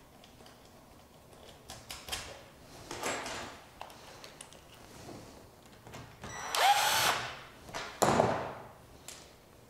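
Cordless drill running in two short bursts, the first with a rising whine, as it drives a bolt fastening the intake screen sections together. Handling knocks and rustles of the parts come before.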